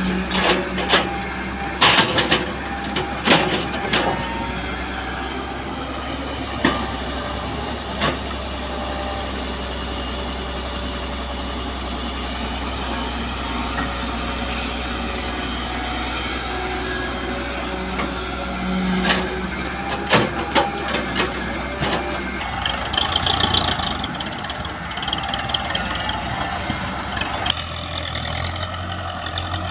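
Diesel engines of a Hyundai Robex 130W wheeled excavator and a farm tractor running steadily, with sharp knocks and clatter as bucket loads of earth and clods are dumped into the tractor trolley, mostly in the first eight seconds and again about twenty seconds in. Near the end the engine note changes as the tractor pulls away with the loaded trolley.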